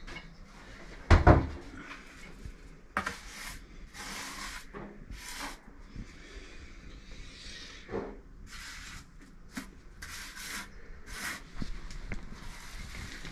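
A heavy thud about a second in, then repeated short scraping strokes of a steel trowel working wet mortar on a concrete floor.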